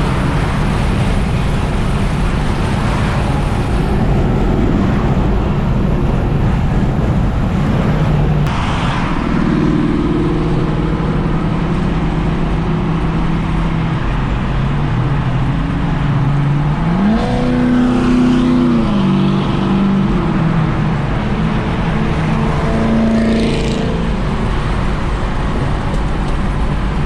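Car driving, with steady engine and road noise. About two-thirds of the way through, the engine note rises quickly, holds for a couple of seconds, then drops back.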